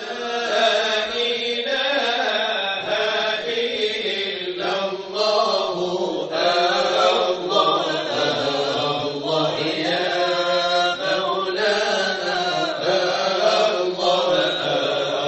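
Melodic vocal chanting with long held, gliding notes, continuing without a break.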